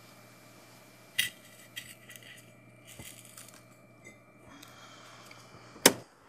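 A small metal bowl clinking as it is touched or struck: a sharp clink about a second in, a few lighter taps and scrapes, and the loudest clink near the end.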